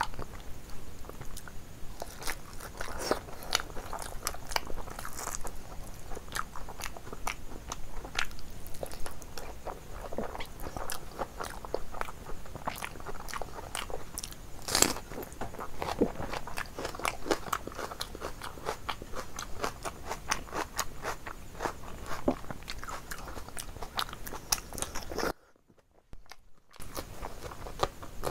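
A person chewing and biting food close to the microphone, with frequent crisp crunches and crackles. A sharper, louder crunch comes about halfway through as raw onion is bitten. The sound cuts out for about a second and a half near the end.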